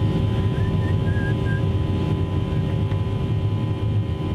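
Airplane engines running during takeoff: a steady low drone with a constant higher whine, slowly easing off in level.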